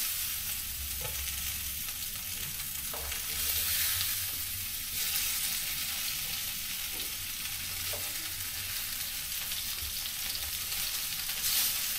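Salmon sizzling in a frying pan, a steady hiss that swells a little at times, with a few light taps of metal tongs as pieces are lifted onto a plate.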